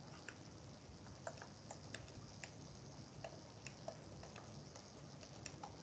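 Faint, irregular light ticks of a stylus tip tapping a tablet screen during handwriting, about two a second, over a low steady hiss.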